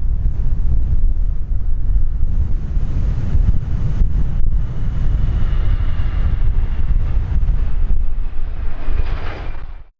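BAe 146-200's four turbofan engines running as the jet rolls out on the runway after landing, under heavy wind rumble on the microphone. A faint high engine whine grows through the second half, and the sound cuts off abruptly just before the end.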